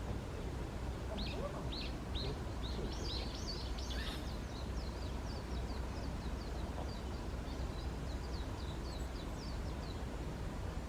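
A small bird calling in a string of short, high chirps that quicken into a rapid run, then stop shortly before the end. Beneath it is a steady low rumble.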